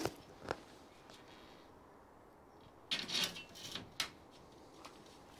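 Hand work at an aluminium greenhouse frame: a couple of light clicks, then about three seconds in a short scraping rustle followed by a sharp click.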